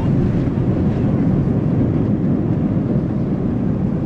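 Steady rumble of engine and airflow noise heard inside the cabin of a Boeing 767-300ER airliner.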